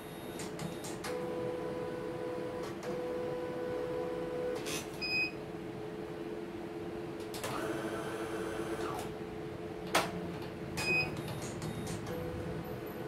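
CNY computerized embroidery machine switched on and idling: its embroidery-unit stepper motors hum steadily, with a brief burst of motor movement past the middle and a few light clicks. Two short electronic beeps come from the machine, about a third of the way in and again near the end.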